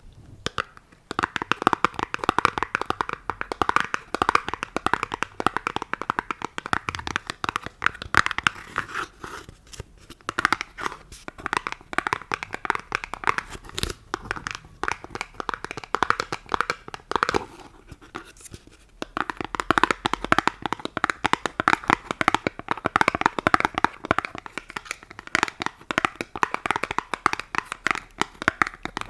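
Rapid, continuous ASMR tapping, many quick taps a second, in long runs broken by short pauses about ten seconds in and again near nineteen seconds.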